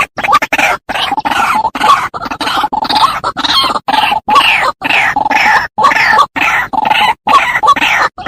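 White-breasted waterhen calling: a fast, unbroken run of short harsh notes, several a second, with brief gaps between them. This is a recorded call played back as a lure to draw the birds in.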